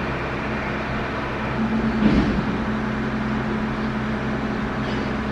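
Steady low mechanical hum, swelling briefly about two seconds in.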